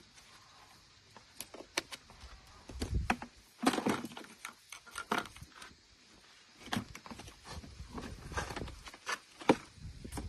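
Objects being handled: irregular sharp clicks, light knocks and short bursts of rustling and scraping, busiest in the middle and toward the end.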